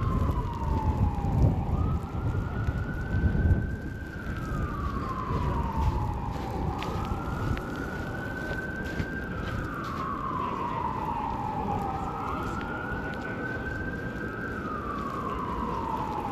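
Emergency vehicle siren sounding a slow wail, its pitch rising and falling in long sweeps about every four and a half seconds. A low rumble sits under it in the first few seconds.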